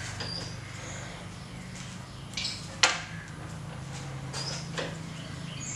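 Chalk on a blackboard: short scratchy strokes as lines are drawn, with a sharp tap about three seconds in. A steady low hum runs underneath, and a few short high bird chirps are scattered through.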